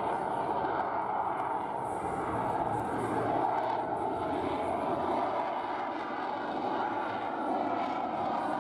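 Twin jet engines of an F/A-18 Hornet-family fighter running at high power as it climbs overhead: a steady, rushing jet noise that swells and eases slightly.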